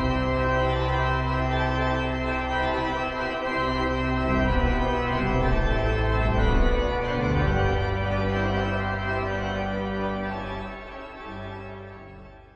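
Church organ playing held chords that change every few seconds, the sound fading away near the end.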